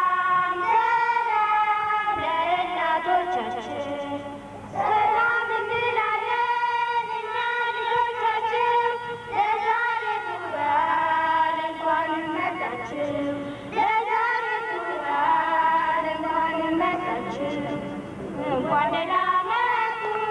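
High voices singing a song in phrases of about four to five seconds, each followed by a short break.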